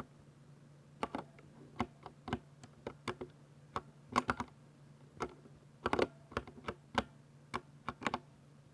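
60% mechanical keyboard with Ducky silver switches being typed on: irregular keystroke clicks, often in quick clusters of two or three, starting about a second in, over a steady low hum.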